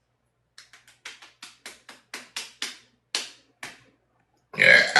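A quick run of about a dozen sharp taps, roughly five a second, then a loud, short throaty sound near the end.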